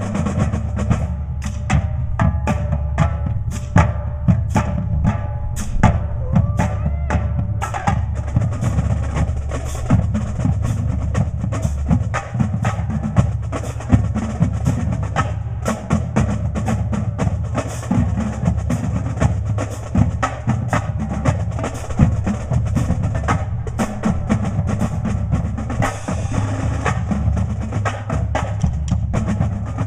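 Drums played in a fast, busy rhythm of dense strikes, with steady low-pitched music underneath.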